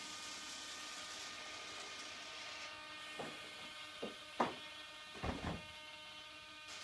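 Robart retractable landing gear of a 1/7-scale B-25J model retracting, with a steady hiss throughout. Several clunks come between about three and five and a half seconds in as the gear and doors come up and seat, the loudest about four and a half seconds in.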